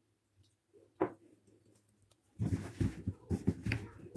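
Near silence with a single click about a second in, then from about halfway a run of irregular soft knocks and taps as the millet-flour dough is mixed by hand in a bowl after a spoonful of water.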